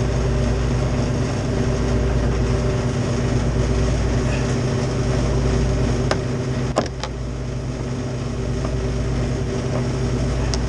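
Steady low mechanical hum of a running motor, with two sharp clicks about six seconds in, the second louder, from the door closer being tightened.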